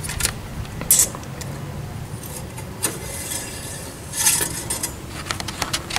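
Scattered light metal clicks and scrapes of an engine oil dipstick being worked in its tube, in a few short clusters.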